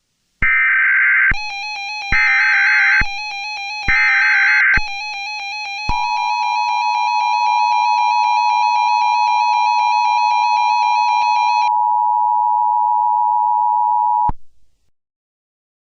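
Emergency Alert System signal: three short bursts of SAME header data about a second apart, then the two-tone attention signal, a steady high tone held for about eight seconds and cut off suddenly. A wavering synthesizer tone sounds beneath the data bursts and the first part of the attention tone.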